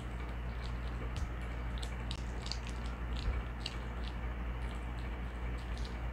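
A Chihuahua chewing a soft treat: a run of small, irregular wet clicks and crackles.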